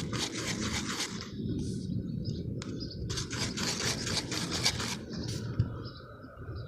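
Slime being stirred in a container: quick repeated scraping strokes in two spells, about a second and then about two seconds long, with faint chirping near the end.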